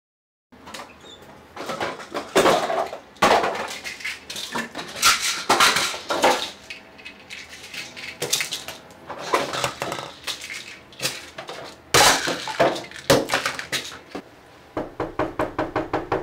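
Small hard objects clattering and knocking together in irregular bursts as they are rummaged through and dropped into a backpack. Near the end, a fast, even run of knocks of a fist on a wooden door.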